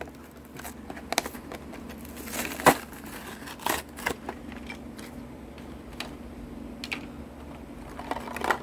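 Clear plastic blister pack of a Hot Wheels monster truck toy being pulled open by hand: scattered plastic crinkles and sharp cracks, the loudest a little over two and a half seconds in.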